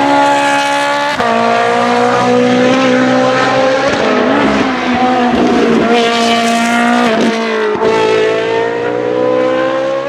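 Race car engine accelerating hard on track. Its pitch climbs steadily and drops sharply at each upshift, several times.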